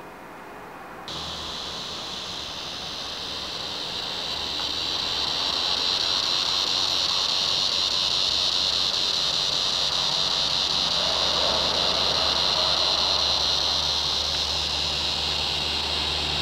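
Steady, high-pitched drone of an insect chorus, starting abruptly about a second in and growing louder over the next few seconds, over a low steady hum.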